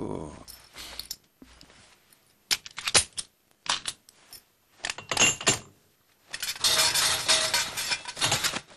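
Cartoon sound effects of a key working the lock of an ornate metal toilet-paper holder: a few sharp metallic clicks and rattles, then a longer hiss of about two seconds near the end as the holder opens.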